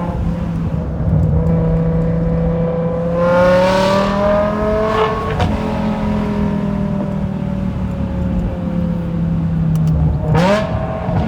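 BMW E60 M5's 5.0-litre V10 with a straight-piped exhaust, heard from inside the car while driving. The engine note climbs under acceleration, breaks off sharply about five seconds in as at a gear change, then falls slowly as the car eases off. Near the end there is a brief dip and quick jump in pitch.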